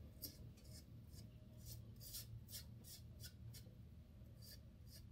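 Faint scraping of a BIC Flex 4 four-blade disposable razor cutting through long beard stubble, in short quick strokes about two or three a second, with a brief pause about four seconds in.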